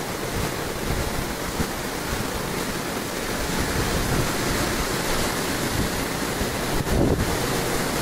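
Rough ocean surf with whitecaps breaking onto the beach: a steady rushing wash of water. Wind gusts on the microphone, strongest near the end.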